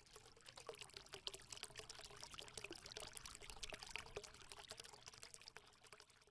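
Faint crackling, trickling noise made of many small irregular ticks, over a weak steady hum.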